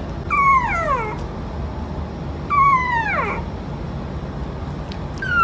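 Puppy whining: high cries that each fall sharply in pitch over less than a second. Two come about two seconds apart, and a third starts at the very end.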